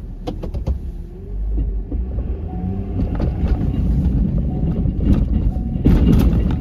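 Plow truck's engine running with a steady low rumble, heard from the cab, with scattered clunks. A louder burst of knocking comes about six seconds in as the angled plow blade pushes into a snowbank.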